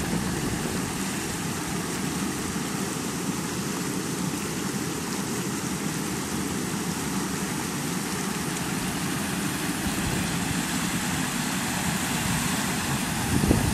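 Floodwater rushing steadily over rocks in a flash flood.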